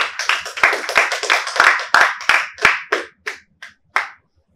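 A small audience clapping, a run of separate hand claps that thins out and stops about four seconds in.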